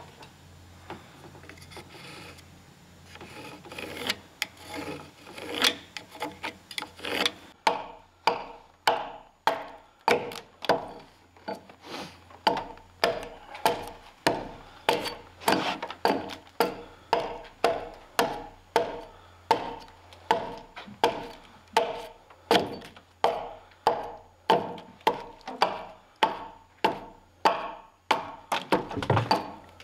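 Hand axe chopping into the end of a round log, a steady run of blows a little under two a second, splitting chips off to hew the log's head down to the marked lines. Softer scraping on the wood comes first, before the chopping starts.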